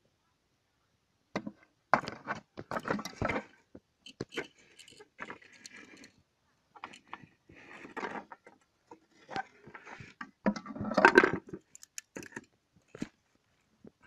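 Rigid cured fiberglass-epoxy parts being handled: irregular knocks, clatter and scraping as the hard rings and shell are moved against each other, starting about a second and a half in and busiest near the end.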